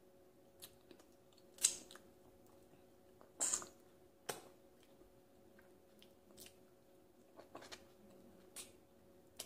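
Close-up eating sounds of soft durian flesh being eaten by hand off the seed: scattered wet mouth clicks and smacks, the loudest about a second and a half in and again around three and a half seconds in.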